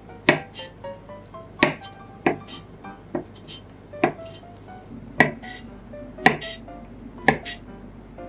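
Chef's knife chopping ham on a bamboo cutting board: single sharp knocks of the blade on the wood, about one a second, about eight in all. Background music plays under them.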